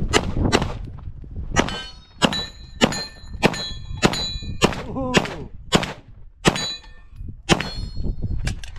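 Pistol fired in steady succession at steel targets, about fourteen shots, one every half second or so. Most shots are followed by the ring of a struck steel plate.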